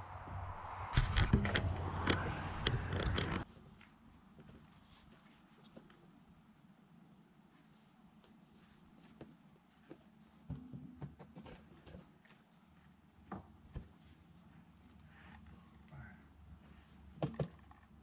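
A steady, high-pitched insect chorus runs throughout. For the first three seconds or so it is joined by loud rustling and knocks from the cardboard dome being handled, which stop abruptly; after that only faint scattered taps and steps are heard under the insects.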